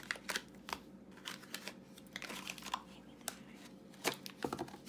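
Cardboard Lost Kitties blind-box carton being handled and pulled open by hand: irregular clicks, taps and crinkles of card, a few sharper ones among them.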